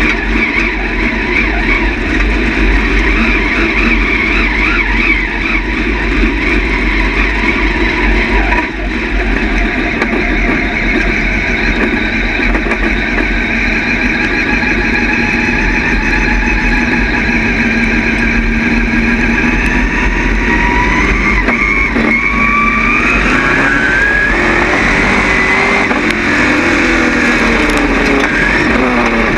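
Dirt late model stock car's V8 engine heard from inside the cockpit, running steadily at part throttle, then revving higher about two-thirds of the way through, its pitch climbing and wavering up and down.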